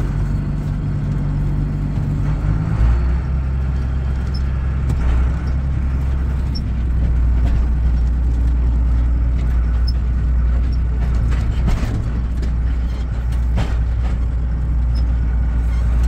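Farm tractor's diesel engine running steadily, heard from inside the cab as it drives along a rough dirt lane. The engine note drops lower about three seconds in, and a few short knocks and rattles come later as the cab bumps along.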